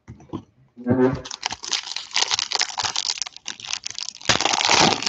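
Foil wrapper of a Select football card pack crinkling and crackling as it is handled and torn open, loudest near the end.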